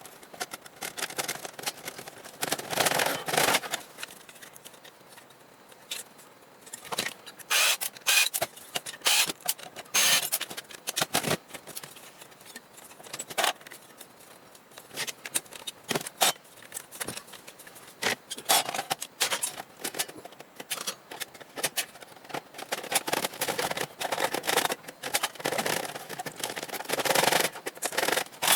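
Clicks, clatter and scraping of metal and plastic parts as a desktop computer tower is pulled apart by hand, in irregular sharp knocks and short scraping bursts.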